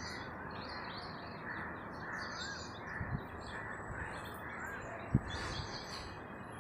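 Small birds chirping and calling over a steady background noise, with a single sharp plastic click about five seconds in, as a quick-connector on a pressure-washer inlet hose is fitted.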